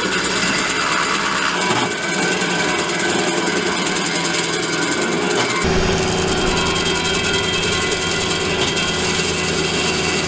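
Skid-steer loader engine running under load while a hydraulic stump grinder cuts into a stump, with a steady mechanical grinding over the engine. A little under six seconds in, the engine's low drone steps up suddenly and holds.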